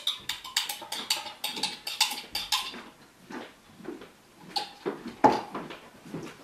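Handling taps and clicks of a plastic bottle against a bamboo slat board on a steel basin: a quick run of sharp clicks for about three seconds, then scattered knocks. The loudest knock, about five seconds in, rings briefly.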